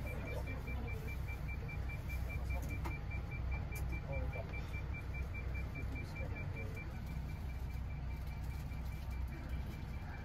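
Highway coach's diesel engine idling while parked, a steady low rumble heard from inside the cabin, with a faint steady high-pitched tone over it.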